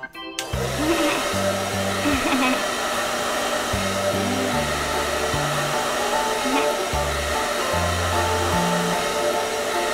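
Electric hair dryer blowing steadily, starting about half a second in, over background music with a stepping bass line.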